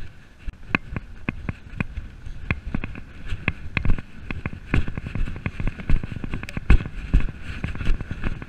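A pony cantering on grass, heard from the rider's chest: hoofbeats and sharp knocks and jingles from the bridle and saddle in a quick uneven rhythm.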